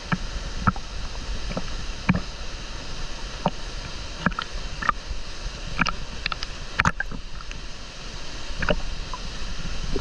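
Pool water lapping and sloshing against a camera held at the waterline, with small irregular splashes and drips.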